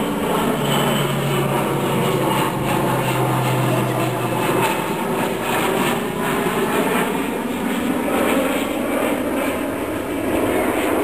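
Twin-engine turboprop aeroplane flying past, a steady engine-and-propeller drone with a low propeller hum that drops away about four and a half seconds in.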